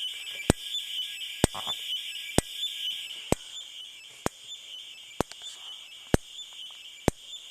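Strobe of a Simplex 4903-9238 horn/strobe fire alarm flashing, a sharp click about once a second, over a high-pitched warbling whine from its strobe capacitor charging. The owner doesn't think the whine is supposed to sound like that; he expected a constant beep or a little hum.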